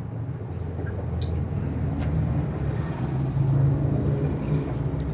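A low, steady rumble that slowly swells over a few seconds and eases a little near the end.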